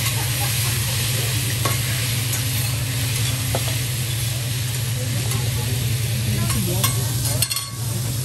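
Sliced onions and zucchini sizzling on a hot teppanyaki griddle as they are tossed with a metal spatula and fork. A few sharp clicks of metal scraping and tapping the steel plate come through, over a steady low hum.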